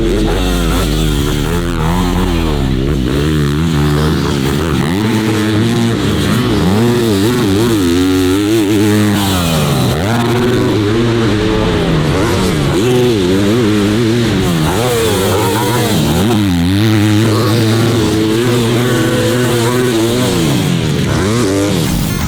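Dirt bike engine being ridden hard, its pitch rising and falling over and over as the rider opens and closes the throttle and shifts.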